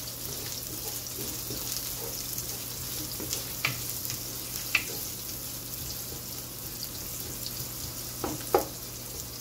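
Chopped garlic and sliced onion sautéing in oil in a nonstick pan: a steady sizzle while a wooden spatula stirs them, with a few light clicks of the spatula against the pan, the sharpest near the end.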